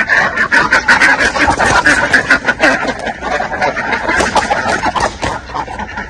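A flock of white domestic ducks quacking, many short calls overlapping one another.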